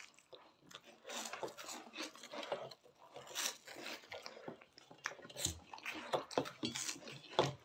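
Several people crunching and chewing cheese balls at once: a run of small, irregular crunches and mouth noises.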